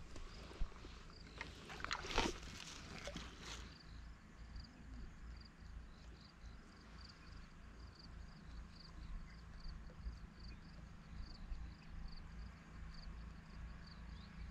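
Quiet lakeside ambience: an insect, likely a cricket, chirping in a steady run of small high chirps, a few a second, over a faint low rumble. A few brief rustles in the first few seconds.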